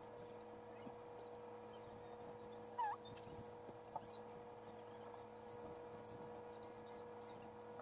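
Quiet room tone with a steady low hum, broken by a short faint chirp about three seconds in, a sharp click about a second later, and a few fainter high chirps.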